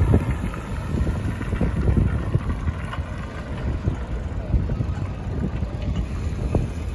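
Wind buffeting the microphone of a camera on a moving bicycle, a gusty low rumble, with city street traffic beneath it.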